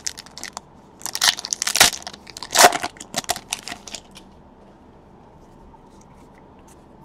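Foil wrapper of a Panini Chronicles baseball card pack being torn open and crinkled by hand, in a string of short crackling bursts.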